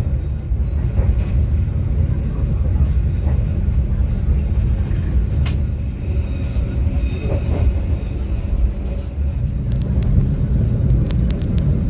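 Steady low rumble of the Argo Wilis passenger train running on the rails, heard from inside the executive coach, with a few short clicks near the end.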